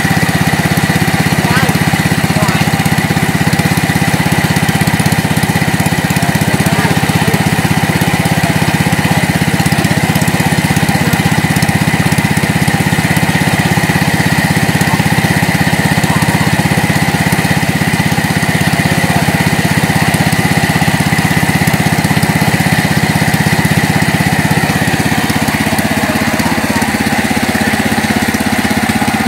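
Small petrol-engine water pump running steadily at constant speed, pumping water out of a pond.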